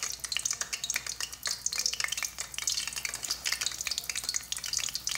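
Rabanadas, bread slices soaked in milk and egg, frying in hot oil in a pot: a dense, steady crackle of sizzling as more slices go in.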